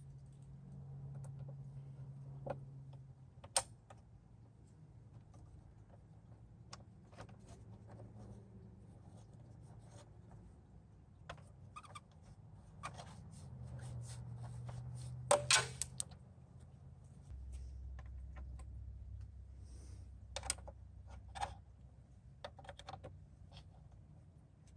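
Scattered light clicks and taps of small metal parts and hand tools being handled, with a quick cluster of sharper clicks about two-thirds of the way in, over a low steady hum.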